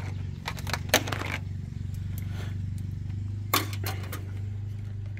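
Multimeter test leads and probes clicking and rattling as they are handled, in two short clusters, about half a second in and again about three and a half seconds in, over a steady low hum.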